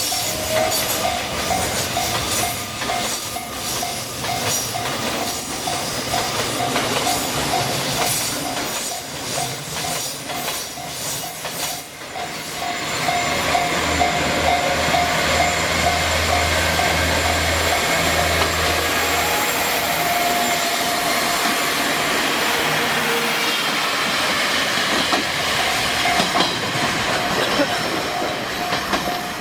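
Japanese level-crossing warning bell ringing in a steady repeating tone while a train goes by. About 13 seconds in, the train's running noise swells, with a low drone and the clatter of wheels on rail under the bell.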